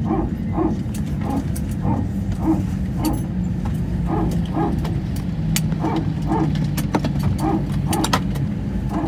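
Airbus A320 power transfer unit (PTU) barking: short, rhythmic woofs about twice a second over the steady low rumble of an idling IAE V2527 engine. The bark is the PTU transferring pressure between hydraulic systems, typical of taxi-in after one engine has been shut down.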